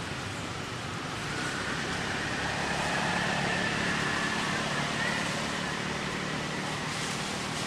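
Steady outdoor background rush with a low hum, swelling a little in the middle and easing again.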